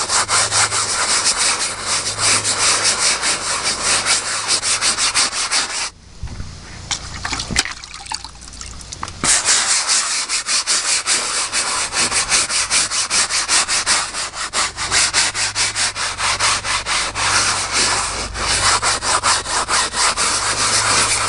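Hand scrub brush scrubbing a wet, foamy cloth seat in fast back-and-forth strokes, with a break of about three seconds some six seconds in.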